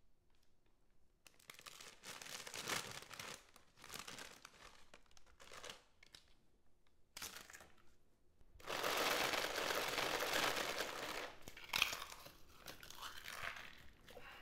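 A snack-chip bag crinkling and crunching in irregular bursts as the chips inside are crushed into dust. A loud, sustained stretch of crinkling runs for about three seconds past the middle, with a sharp snap just after it.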